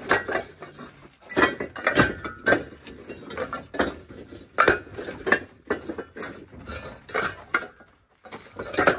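Hollow fired-clay bricks clacking against one another as they are unloaded by hand from a truck and stacked: irregular sharp clinks about two a second, with a short lull near the end.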